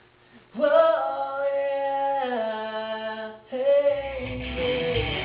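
A man singing long held notes into a studio vocal microphone, unaccompanied. He holds one long note that steps down in pitch about two seconds in, then starts another note. Near the end, low instrumental backing comes in underneath.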